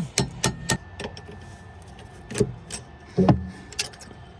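Metal hand tools and brake caliper parts knocking and clinking against each other as the caliper pins are pushed out: four quick sharp clicks in the first second, then a few more scattered knocks, two of them heavier.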